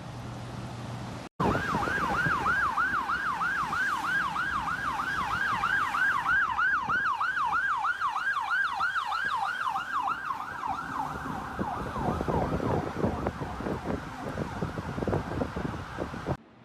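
An emergency vehicle's siren on a fast yelp, its pitch sweeping up and down about three times a second, over a steady rushing noise; it fades away after about ten seconds.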